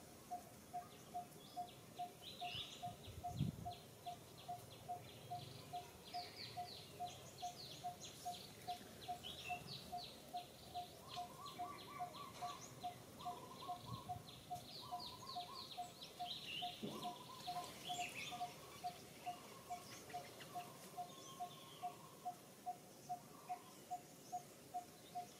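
Birds calling in the treetops: rapid strings of high chirps through the middle, over a steady single note that repeats about twice a second throughout. A low thump about three seconds in.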